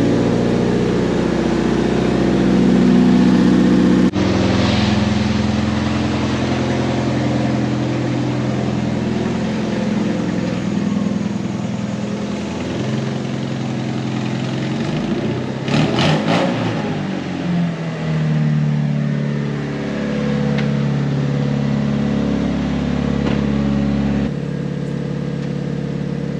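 Sixth-generation Honda Civic's engine and exhaust running while the car is driven, a steady drone that changes abruptly about four seconds in, with a brief louder swell of gliding pitch about two-thirds of the way through.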